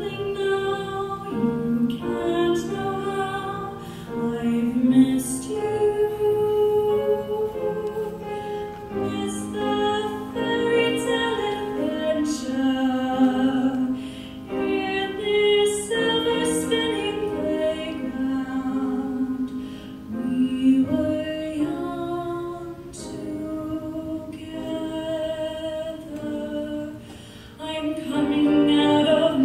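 A woman singing in a trained classical voice. She holds long notes in phrases separated by short pauses for breath.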